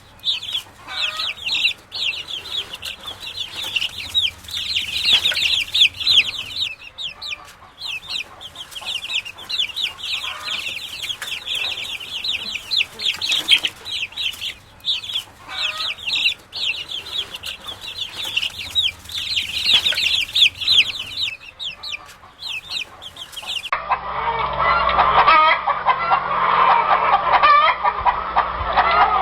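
Chickens: a crowd of chicks peeping, many rapid high chirps overlapping without a break. About 24 seconds in it cuts to adult hens clucking, lower in pitch and louder.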